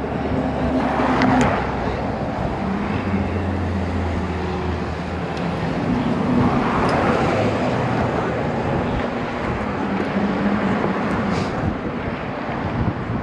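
Road traffic on the bridge: cars passing close by, one swelling past about a second in and another around seven seconds, over a steady hum of tyres and engines.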